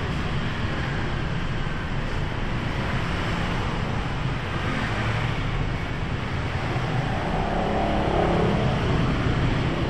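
Steady street traffic noise from passing engines, a little louder near the end.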